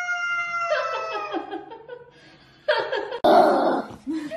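A cat's long, drawn-out yowl, held on one steady pitch and joined by a second overlapping yowl, trailing off about a second and a half in. After a short lull, a loud harsh noise breaks in near the end.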